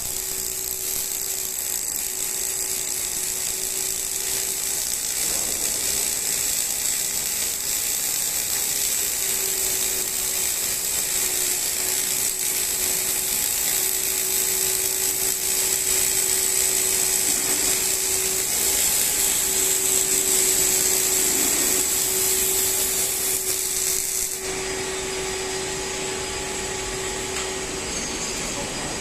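Robotic arc welding on a steel roller: the welding arc hisses steadily over a constant hum, then cuts off sharply about 24 seconds in as the weld pass ends.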